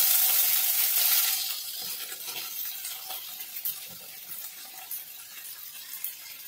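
Chopped beans, carrot and capsicum dropped into hot oil with mustard seeds and cumin in a steel kadai, sizzling loudly at first. The sizzle dies down within about two seconds into a softer, steady crackle with a few small clicks, the gas already turned off.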